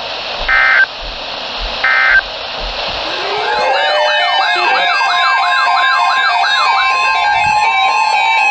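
Emergency Alert System digital data bursts: two short, buzzy bursts of tones about a second and a half apart, over radio hiss. From about three seconds in, a loud warbling, siren-like alert sound of several sweeping and stepping tones takes over, joined by one steady alert tone that holds through to the end.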